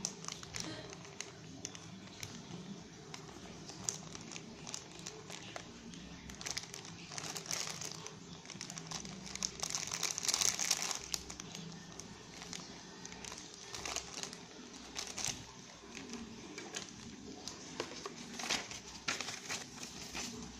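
Small clear zip-lock plastic parts bags crinkling as they are squeezed and turned over in the hands. The sound is a run of quick crackles, loudest about halfway through.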